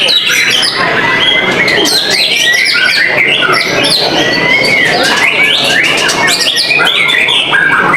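White-rumped shamas singing at a songbird contest: several birds overlap in a continuous stream of rapid whistles, trills and chirps with no break.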